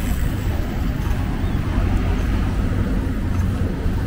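Outdoor street ambience with a steady low rumble and no distinct events.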